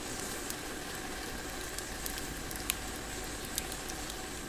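Steady hiss, with a few sharp light clicks from a metal spoon scooping rice flour and a plastic flour bag being handled.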